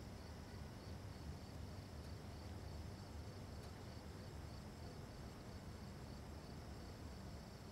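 Faint night ambience of crickets chirping steadily, a fine pulsing trill over a low background hum.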